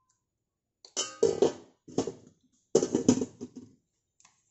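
Stainless steel lid set onto a stainless steel pan: metal clanks that ring, in two clusters, the first about a second in and the second about three seconds in.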